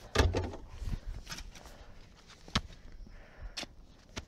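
Handling noises as a wheel hubcap and wheel-changing tools are packed into a car boot: a dull thump at the start, then a few scattered sharp knocks and clicks.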